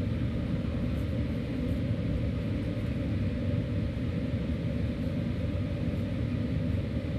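Air conditioner running with a steady low rumble.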